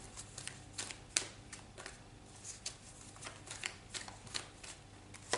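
A tarot card deck being shuffled and handled: irregular crisp snaps and slides of the cards, with one sharper snap about a second in.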